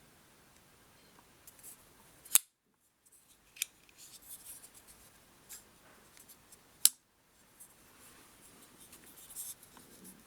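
Folding pocket knife being handled, with two loud, sharp snaps about four and a half seconds apart, the flipper blade snapping open or shut, a smaller click between them and light rustling of handling.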